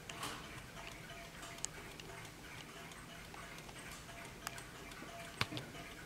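Warmink mantel clock's movement ticking quietly, with a couple of sharper clicks, the loudest about five seconds in.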